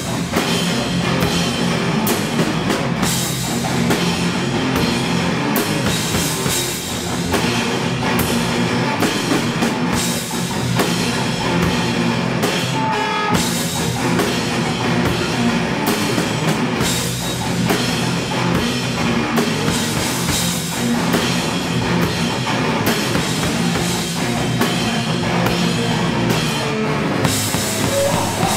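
Live rock duo playing loudly: electric guitar over a drum kit with cymbals, instrumental with no singing.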